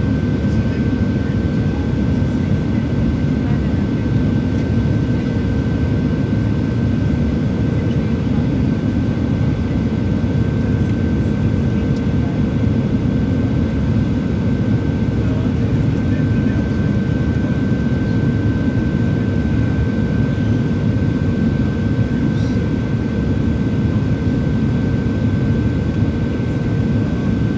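Steady cabin noise inside a Boeing 737-700 airliner in flight on approach, with its wing flaps extended. Its CFM56 engines and the airflow make a dense low rumble, with two thin steady tones, one mid-pitched and one higher, running through it unchanged.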